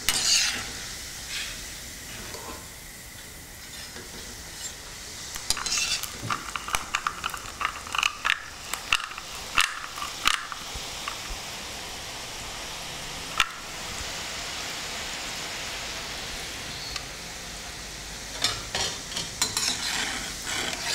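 Besan sev deep-frying in hot oil in a kadai, a steady sizzle throughout. Metal utensils, a slotted spoon and a metal sev press, clatter and tap against the pan in clusters about a third of the way in and near the end, with one sharp click in the middle.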